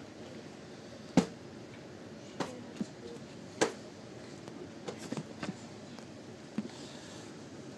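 Irregular sharp knocks and thuds of objects being handled and set down, about eight in all, the loudest about a second in and again midway.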